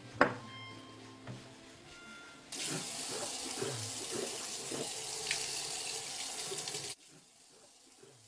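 A sharp clack just after the start, then a bathroom tap running into a sink: a steady rush of water for about four seconds that starts abruptly and cuts off suddenly.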